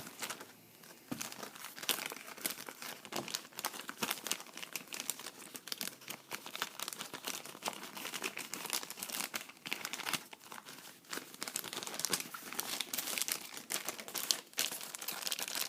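Plastic packaging being crinkled and crumpled by hand as a parcel is unwrapped: a dense, irregular crackling that goes on without a break, with some tearing.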